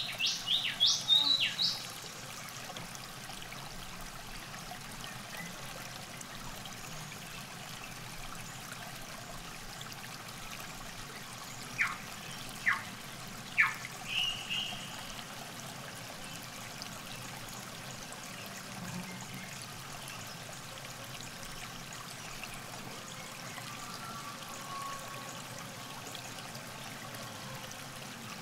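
River water trickling steadily along the bank, with birds calling over it: a quick run of chirps in the first two seconds, then three sharp notes and a short call about twelve seconds in.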